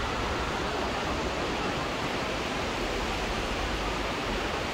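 Steady rushing noise of ocean surf breaking on the beach below, with no separate wave crashes.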